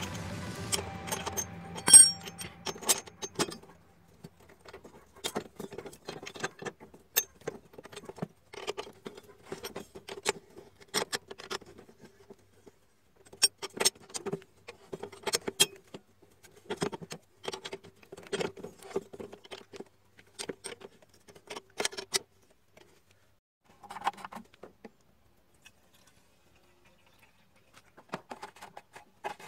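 Open-end wrench clinking against a steel lawn mower blade and its bolt as the blade is fitted and the bolt tightened: irregular metallic clicks with a faint ringing from the blade. Background music fades out in the first few seconds.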